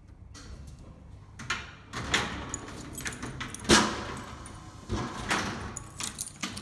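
A string of irregular clicks, knocks and rustles, like objects being handled, the loudest knock about three and a half seconds in.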